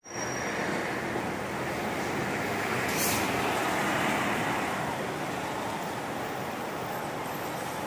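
Highway coach driving past and pulling away, a steady engine and road-noise rumble, with a short sharp air hiss about three seconds in.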